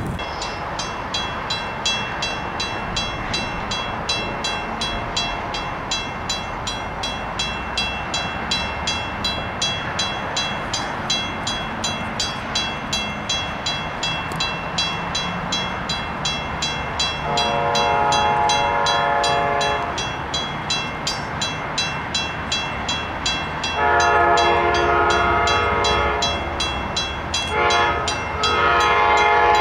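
Grade crossing bell ringing steadily, with an approaching passenger train's multi-chime horn sounding the crossing signal: two long blasts, a short one, then a long one near the end.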